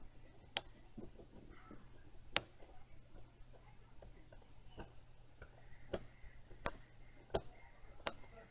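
Click mechanism of a Marryat MR7A fly reel, its gear turned by hand against a home-made replacement part to test the fit: single sharp clicks at uneven intervals, about one a second.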